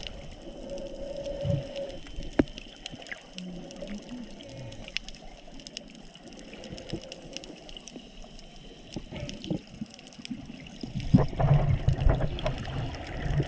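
Water sounds heard by a snorkeller's GoPro: uneven sloshing and bubbling noise with many scattered sharp clicks. The water noise grows louder and deeper in the last couple of seconds.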